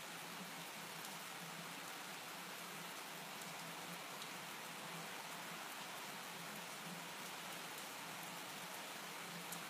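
Steady rain falling outdoors: an even, faint hiss, with one sharper drop tick near the end.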